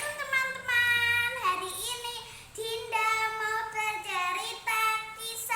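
A child singing a slow, high melody in long held notes.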